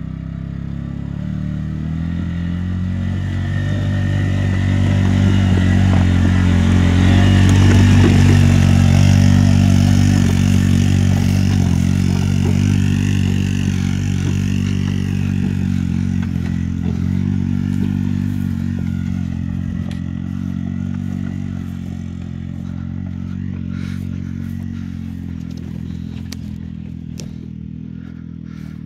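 ATV engine running as the quad is ridden over rough ground. It grows louder over the first eight seconds or so, then slowly fades.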